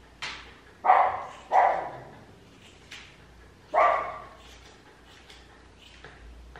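A Maltese dog barks sharply and suddenly four times within about four seconds, with a fainter bark in between, while its face is trimmed.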